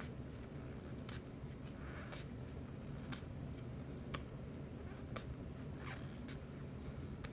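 Baseball trading cards being flipped off a stack one at a time, a short card-on-card swish or click about once a second, over a low steady hum.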